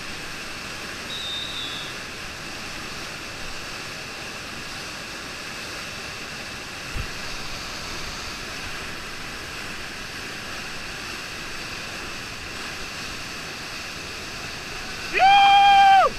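Big whitewater rapid on the Snowy River, swollen by a 4,500 ML/day dam release, rushing steadily. About a second before the end a person lets out a loud, held yell.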